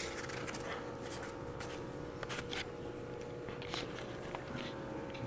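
Faint room tone: a low steady hum with scattered soft scratching and rustling sounds.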